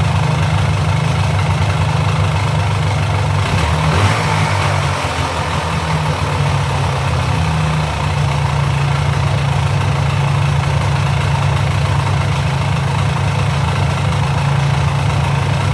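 Polaris Sportsman 400's liquid-cooled two-stroke engine idling steadily. Its note steps slightly about eight seconds in.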